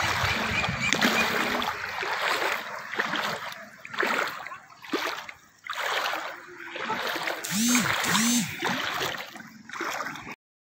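Floodwater splashing and sloshing in uneven surges as someone moves through it. Two short rising-and-falling calls come through about three-quarters of the way in, and the sound cuts off abruptly just before the end.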